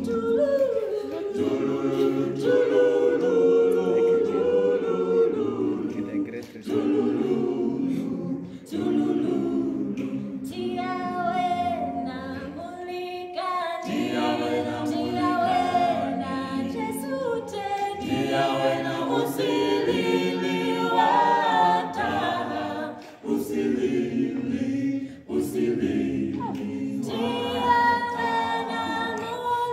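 Mixed vocal quartet of two men and two women singing a gospel song a cappella in harmony, with short breaks between phrases.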